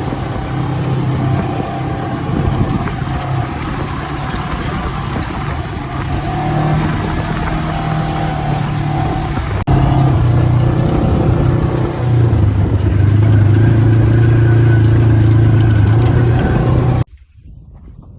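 ATV engine running while being ridden, its steady note mixed with the noise of the ride. It gets louder and holds a higher, steady note from about twelve seconds in, then cuts off abruptly near the end.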